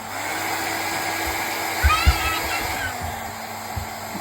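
VORAGA 5-in-1 hot-air brush hair dryer (1200 W) blowing: its motor hum speeds up at the start, holds, then slows back down about three seconds in, over a steady rush of air. A couple of low bumps about two seconds in.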